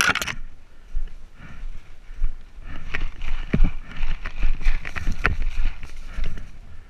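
Running footsteps thudding over forest ground, with undergrowth and leaves crunching and rustling underfoot, an uneven patter of steps that is busiest in the second half.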